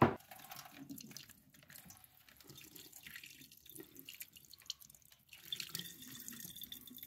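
Salt brine pouring from a plastic freezer bag into a stainless steel sink drain, trickling and dripping unevenly. A sharp click comes right at the start.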